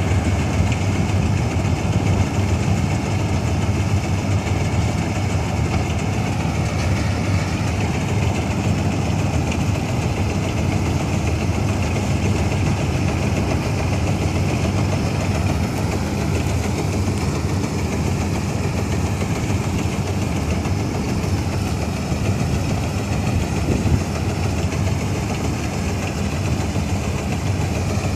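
1965 Ködel & Böhm Köla Combi Special combine harvester running steadily: a loud, even engine and machinery noise with a faint high whine over it.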